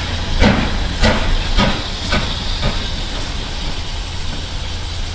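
BR Standard Class 5MT 4-6-0 steam locomotive pulling away, its exhaust beating in a regular chuff about twice a second that fades over the first three seconds as it draws off. A steady hiss and low rumble continue underneath.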